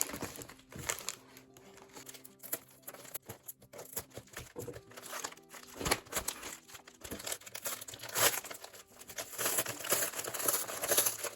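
Cardboard box and packaging being cut open with a pen knife and handled: irregular scraping, tearing and crinkling, loudest near the end.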